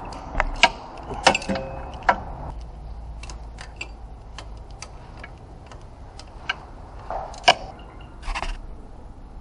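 Ratchet wrench on a long socket extension working a bolt: irregular clicks and metal clinks, one clink about a second in ringing briefly, over a low steady hum.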